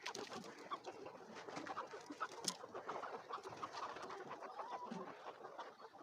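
A flock of laying hens clucking and calling all at once in a steady, dense chatter, with scattered small clicks and one sharper click about two and a half seconds in.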